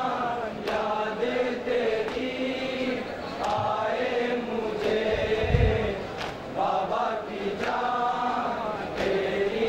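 A group of men chanting a Shia noha (mourning lament) in unison, amplified through microphones, with short chest-beating (matam) strikes about once a second. A heavier low thump comes a little past halfway.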